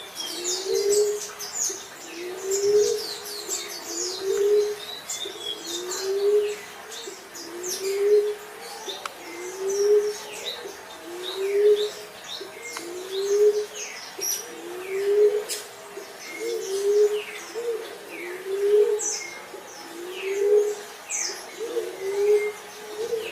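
Common emerald dove cooing: a low, rising coo repeated steadily about every second and a half. Smaller birds chirp and twitter high above it.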